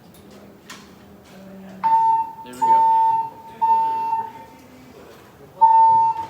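Fire alarm starting about two seconds in, sounding a steady high beep in the three-pulse evacuation pattern: three beeps, a pause, then the next set of three begins near the end.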